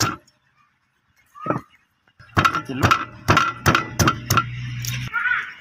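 Cleaver chopping limes on a clay brick: a sharp knock just after the start and another about a second and a half in, then a quick run of about six knocks, roughly two or three a second.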